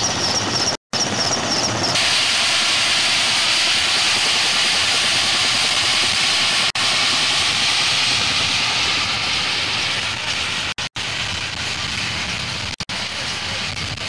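Military helicopter's turbine engines running, a loud steady rushing whine, with a few abrupt brief dropouts where the shots are cut.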